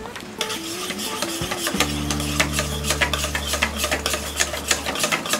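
Wire whisk beating a thin gram-flour batter in a steel bowl, the wires clicking and scraping against the bowl several times a second.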